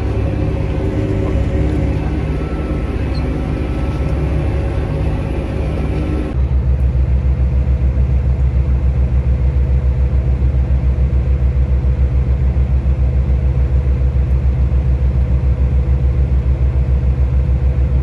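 John Deere tractor's diesel engine running, heard from inside the cab. About six seconds in, the sound cuts to a louder, steady low drone of heavy harvest machinery with a rapid, even pulse.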